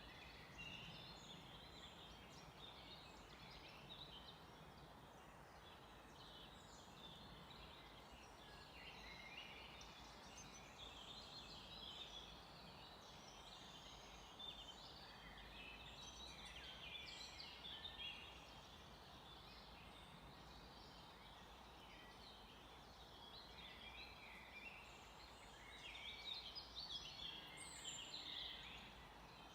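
Faint chorus of songbirds singing and chirping, many short high notes overlapping from several birds, busiest near the end, over a steady low background hum.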